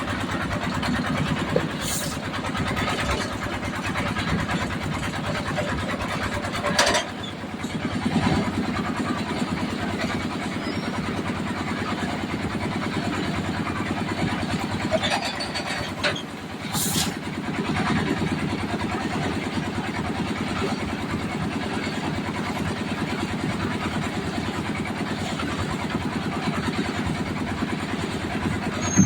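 Concrete mixer's engine running steadily, with a few sharp knocks or clanks cutting through it now and then.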